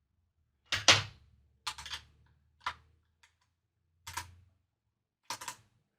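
Metal Fender locking tuners being set down one after another on a work surface: five sharp clacks, the first the loudest.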